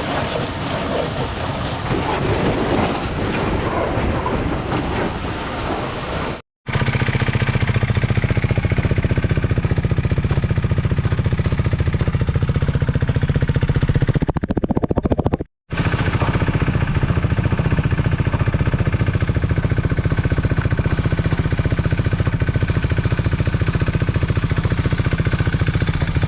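Steady background noise, then, after an abrupt cut, a motorcycle engine running steadily with a fast, even pulse. The engine sound stops for a moment just past halfway, then carries on.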